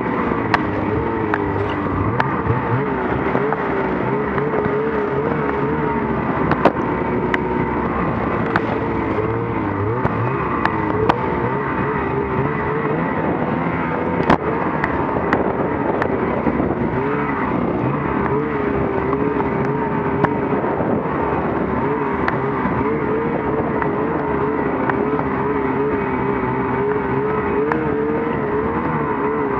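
Snowmobile engine running at speed, its pitch wavering up and down with the throttle, with a few sharp clicks scattered through.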